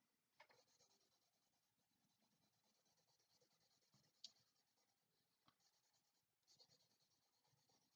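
Very faint scratching of a colored pencil on paper as an area of a drawing is shaded in, with a small tick about four seconds in.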